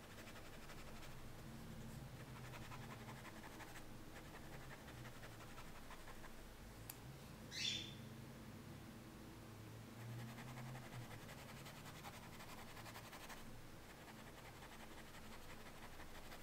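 Quiet room tone with a low steady hum, and one brief high squeak that falls in pitch about seven and a half seconds in.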